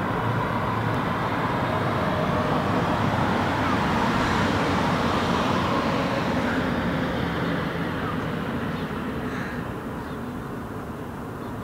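Traffic noise from a passing road vehicle: a steady rushing rumble that swells to a peak about four seconds in, then fades gradually.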